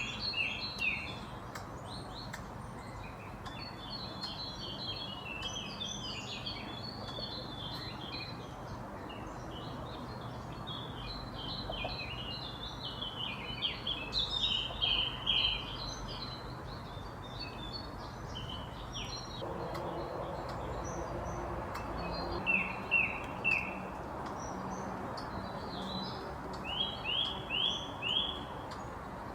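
A squirrel's alarm calling: quick runs of short, high chirps in bursts, ending with two short runs of about three and five chirps. These are the agitated, hiccup-like calls of a squirrel upset by a person nearby.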